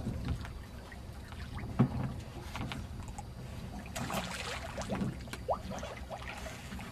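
Water lapping against a small aluminium skiff with wind on the microphone, a sharp knock about two seconds in, and stretches of splashing around four to five seconds in as a hooked fish rolls at the surface beside the boat.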